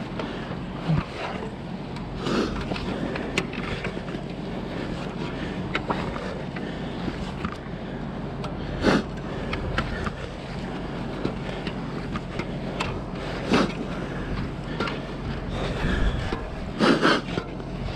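Gloves and boots knocking and scuffing on aerial ladder rungs during a hand-over-hand climb, a sharp knock every few seconds, with a double knock near the end. Under it runs a steady low hum with some wind hiss.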